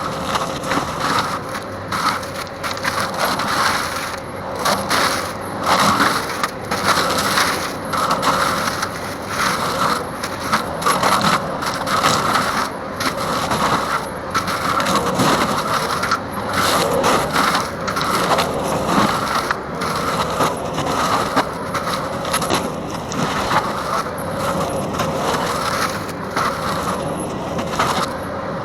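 Bobcat (Fecon) forestry mulcher head on a Bobcat T770 track loader shredding wood and brush, a constant grinding with a dense irregular clatter and crackle of wood breaking.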